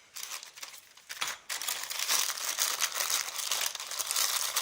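Continuous crinkling, rustling handling noise with many small clicks, starting about a second and a half in, after a few scattered clicks: hands rummaging through a bag or box of lock tools for a smaller plug follower.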